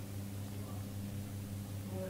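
A steady low hum with faint hiss.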